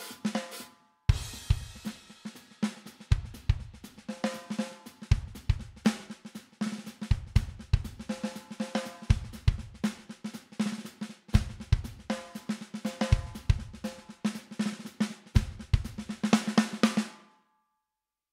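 Sampled drum kit playing a steady rock beat from a DAW: paired kick-drum hits about every two seconds, with ringing snare and cymbals between them, run through a vari-mu leveling compressor on the master. It stops briefly just under a second in, restarts, and cuts off about a second before the end.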